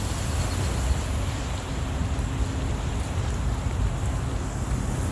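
Steady outdoor wind on the microphone: a low, fluttering rumble with a hiss above it.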